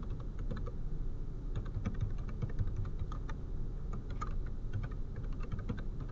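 Typing on a computer keyboard: a run of irregular key clicks, several a second.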